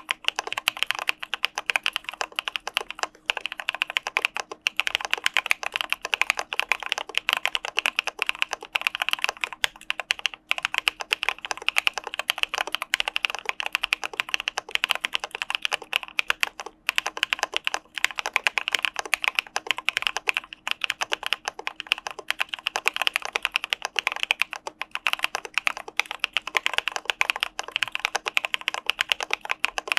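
Continuous fast typing on an Arisu Alice-layout mechanical keyboard fitted with CPSD (Cà Phê Sữa Đá) linear switches, keystrokes following each other rapidly, with a brief pause about ten seconds in and another about seventeen seconds in.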